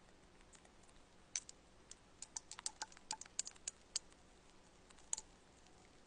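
A quick, irregular run of light, sharp clicks or taps, bunched together in the middle with one more near the end.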